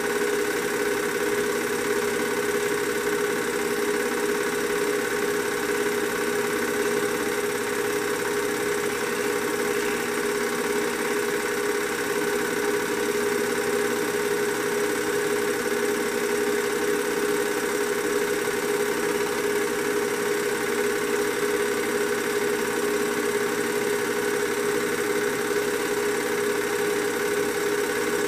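Film projector running: a steady mechanical whir and hum with a couple of fixed pitches, unbroken across the picture's scene changes.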